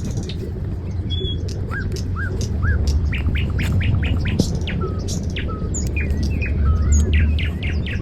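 Small birds chirping in runs of short, quick calls over a steady low hum.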